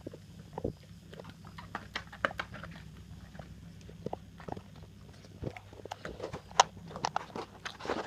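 English bull terrier cross Rhodesian Ridgeback dog eating, making irregular chomping noises with short bites and crunches that come thicker near the end.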